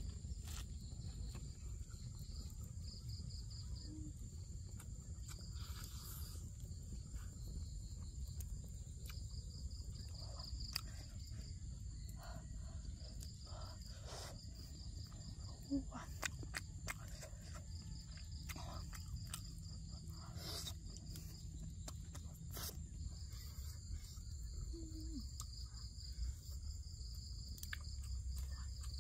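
Insects chirring steadily at a high pitch, with a pulsing cricket-like trill above it, and a low rumble underneath. Scattered close-up clicks and crunches of chewing come through.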